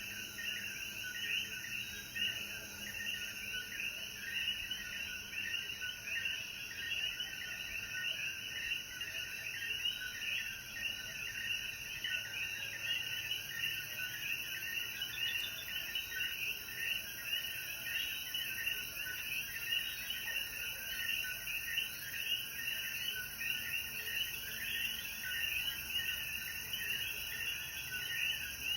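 A dense chorus of many coquí frogs calling, their short chirps overlapping without a break, over a faint steady high hiss.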